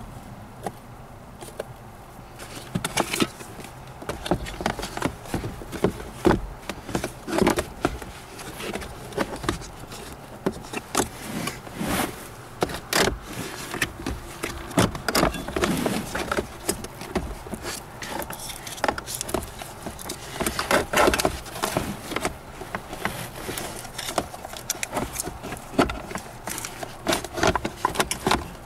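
Hard plastic parts of a Seat Ibiza 6J's heater blower and its housing knocking, clicking and scraping at irregular intervals as the blower unit is handled and fitted back into place under the dashboard.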